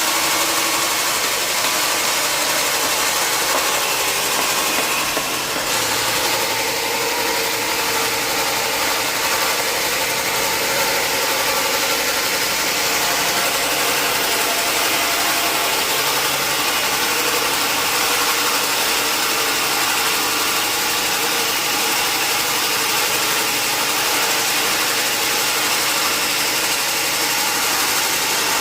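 Sawmill machinery running steadily: a loud, even mechanical noise with no break, dipping slightly about five seconds in.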